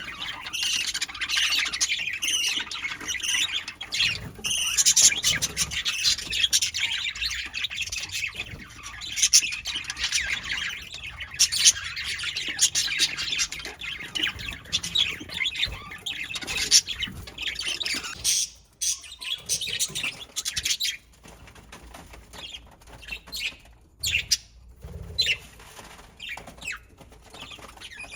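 Budgerigars chirping and chattering, a dense run of rapid, squawky warbling calls. About two-thirds of the way through the calls thin out to scattered chirps and clicks.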